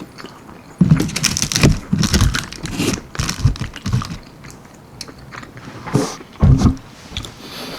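Close-miked chewing and biting of baked almond-flour-breaded chicken wings, with irregular wet mouth clicks.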